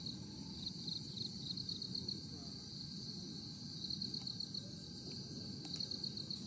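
Insect chirping in short trains of rapid, evenly spaced pulses at a steady high pitch, several times over, above a low rumbling background.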